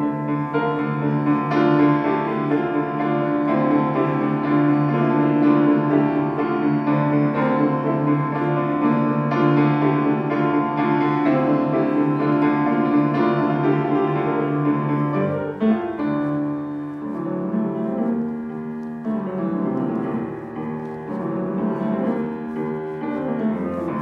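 Acoustic grand piano played solo: a dense, loud passage that breaks off about fifteen seconds in and carries on softer and more broken up.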